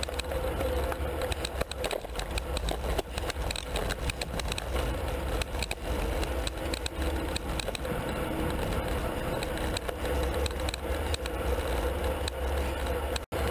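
Riding noise picked up by a handlebar-mounted camera on a road bike in a moving pack: a steady low wind rumble over the microphone and tyre and road noise, with many sharp clicks and rattles from the bike and mount over the road surface. The sound drops out for a split second near the end.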